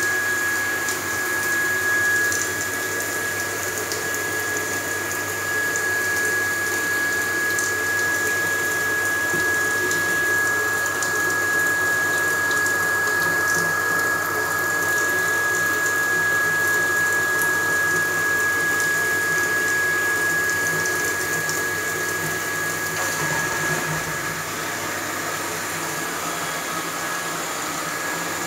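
Small electric flushing pump running with a steady high-pitched whine over water pouring from a tap and hose into a bathtub. It is circulating water through a combi boiler's heat exchanger to wash out rust and limescale sludge. The whine weakens near the end.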